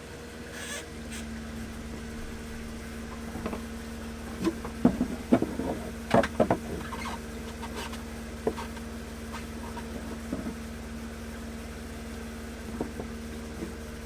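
RV's 12-volt water pump running steadily with a constant hum while the cold water tap runs, with a few knocks and clatters of handling around the middle.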